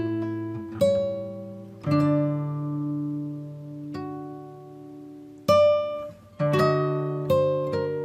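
Background music: an acoustic guitar picking single notes over held bass notes, the notes coming faster near the end.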